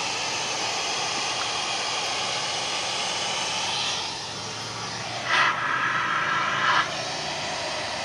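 A steady, dense hiss, with a brief buzzing tone of about a second and a half that starts about five seconds in.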